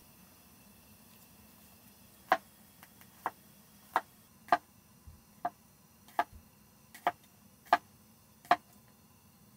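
Chef's knife slicing garlic cloves on a wooden cutting board: about nine sharp, separate taps of the blade against the wood, roughly one a second, starting about two seconds in.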